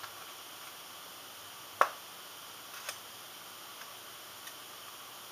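A few sharp metallic clicks and taps from handling the parts of a lawnmower electric starter motor during reassembly, one click about two seconds in much louder than the rest, over a steady faint hiss.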